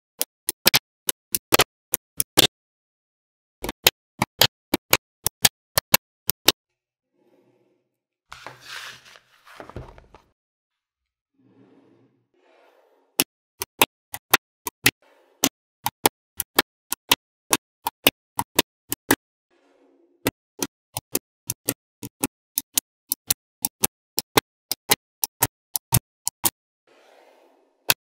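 Small magnetic balls clicking sharply into place one at a time, in quick runs of about three clicks a second with short pauses. A brief scraping or rattling sound comes in the middle.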